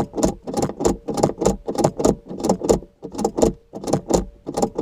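Car key being worked rapidly back and forth in a Ford Focus ignition, the key bunch jangling with each stroke, about three strokes a second.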